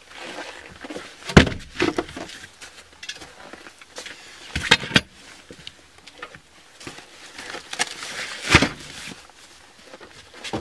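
Bags being loaded into a car's boot: a few sharp thumps and knocks as they are set down on the cargo floor, about a second and a half in, around five seconds in and again near the end, with rustling of the bags and a jacket in between.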